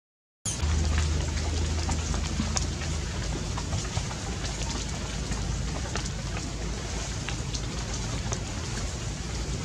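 Steady rain falling, with many scattered ticks of single drops over a low steady rumble; it starts after a split second of silence.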